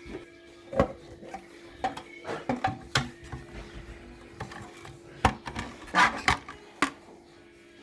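Irregular clicks, knocks and rattles of parts and tools being handled while a digital kWh meter is taken apart, with the loudest knocks about a second in and several more in the last three seconds. A steady low hum runs underneath.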